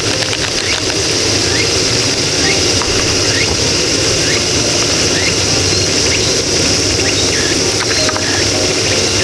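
Steady hiss of a lit gas camp stove burner under a pot, with a series of short rising chirps, a little more than one a second.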